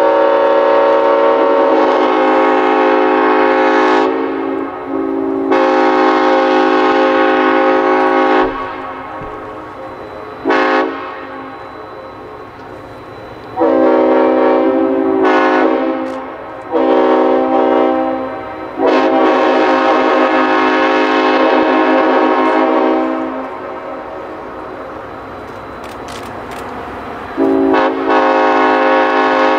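Diesel locomotive air horn, the lead unit being Clinchfield F7 No. 800, sounding a chord of several notes in a long run of blasts: mostly long, held notes with a couple of short toots between them. A quieter rumble of the passing train fills the gaps.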